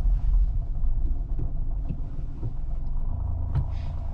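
Low, steady rumble of a car's engine and tyres, heard from inside the cabin as it rolls along.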